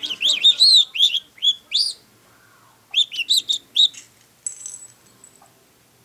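Budgerigar whistling a quick run of high chirpy notes that glide up and down, canary-like, in two bursts: about two seconds of notes, a short pause, then another second of them.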